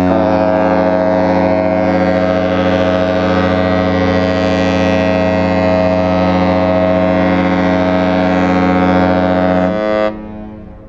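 Cruise ship's horn sounding one long, deep blast of about ten seconds, then cutting off.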